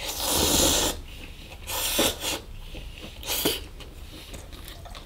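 A person loudly slurping up pad thai rice noodles: one long slurp lasting about a second, then two shorter slurps about two and three and a half seconds in.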